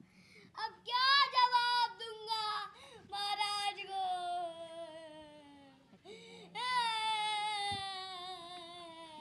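A child's high voice wailing in three long drawn-out cries, each held and sliding slowly down in pitch.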